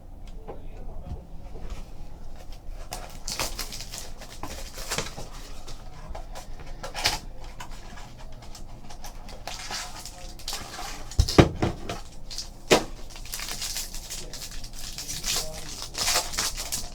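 Trading card pack wrapper crinkling and being torn open, with cards handled and a few sharp knocks on the table, the loudest about eleven seconds in.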